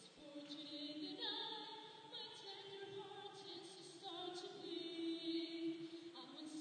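Singing, with long held notes that waver in vibrato.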